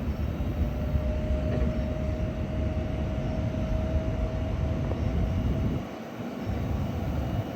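Airplane engines running: a steady low rumble with a faint steady whine through most of it, dipping briefly about six seconds in.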